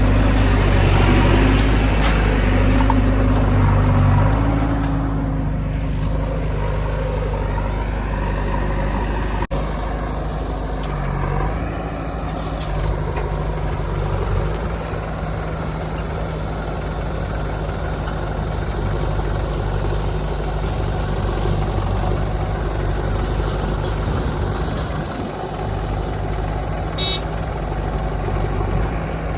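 Heavy diesel machinery engine running steadily at a low, even pitch. The sound changes abruptly about a third of the way in and then settles to a steadier, quieter running note.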